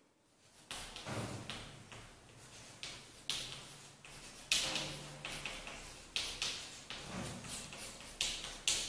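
Chalk writing on a blackboard: an irregular series of sharp taps and short scratching strokes as numbers and fraction bars are written.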